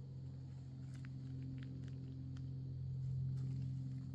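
A distant engine running steadily as a low hum, swelling slightly about three seconds in, with a few faint ticks over it.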